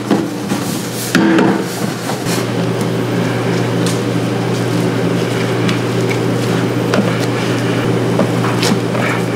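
Burger-kitchen work: a few sharp knocks and clatters of utensils in the first couple of seconds, over a steady low mechanical hum that runs underneath.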